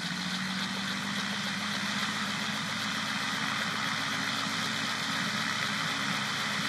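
Gyroplane's engine and propeller running at a steady speed, with its rotor spinning, ahead of a short takeoff. The drone stays even throughout, with a thin, steady high whine over it.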